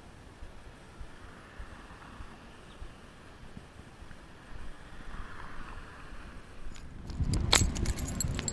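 Faint tyre noise from cars driving past on the street, then the camera being picked up and handled near the end: a low rumble on the microphone with sharp clicks and knocks.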